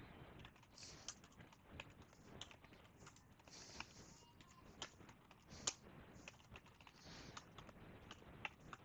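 Faint, irregular keystrokes on a computer keyboard as code is typed, a few strokes sharper than the rest.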